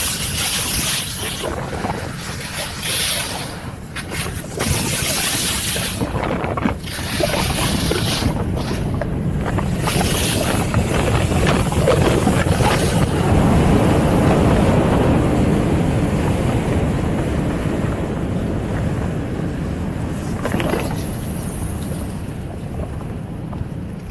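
Wind buffeting the microphone over a steady rushing noise, with gusts in the first half and the rush heaviest around the middle.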